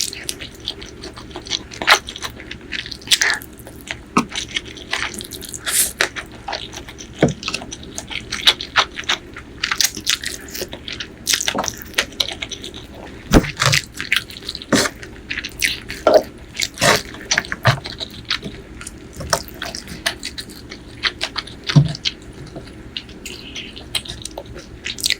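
Close-miked eating: chewing with many short wet mouth clicks and smacks at irregular intervals.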